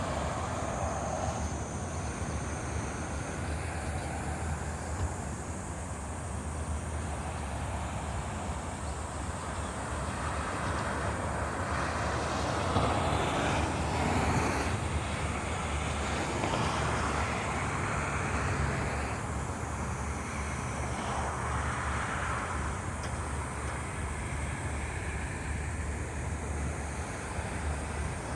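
Steady road traffic noise with a constant low hum and some wind, swelling briefly in the middle as vehicles pass.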